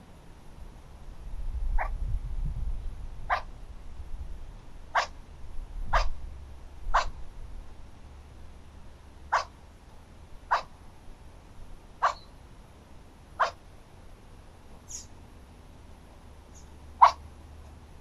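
An animal gives about ten short, sharp barking calls, spaced roughly one to two and a half seconds apart; the last one is the loudest. A low rumble runs under the first few seconds.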